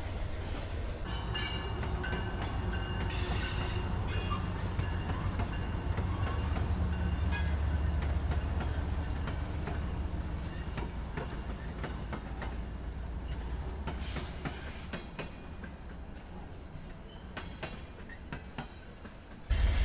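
Freight train with several diesel locomotives passing close by, engines rumbling low and steady. Wheels click over rail joints and squeal briefly a few times.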